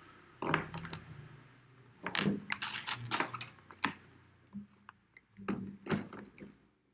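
Computer keyboard being typed on in three quick bursts of key clicks, with short pauses between them.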